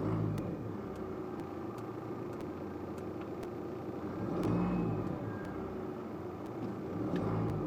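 LDV T60's engine idling and revving up briefly three times as the accelerator is pressed, the biggest rise about four and a half seconds in. The HIKEit X9 throttle controller is set to economy mode, so the pedal has to be pushed fairly far to raise the revs.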